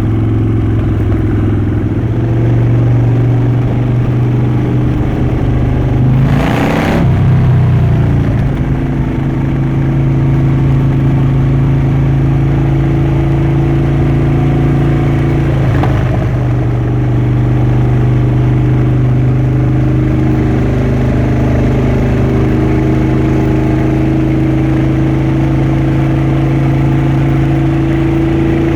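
Harley-Davidson Dyna Switchback's V-twin engine running steadily under way, its exhaust note holding a near-constant pitch. A brief rushing sweep cuts across it about seven seconds in, with a fainter one around sixteen seconds.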